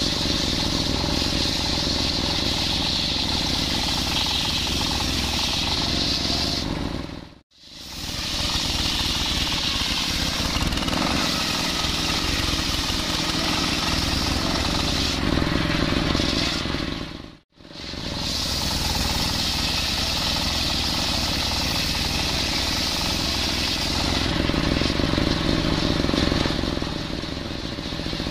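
Large table-mounted circular saw blade ripping a coconut log lengthwise, a steady high-pitched cutting sound over the running engine that drives the saw. The sound cuts out twice for a moment. Near the end the high cutting sound fades as the blade runs on.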